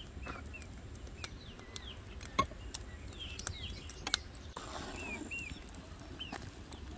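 Small birds chirping in short, high, downward-sliding notes, with a few sharp clicks in between; the loudest click comes about two and a half seconds in.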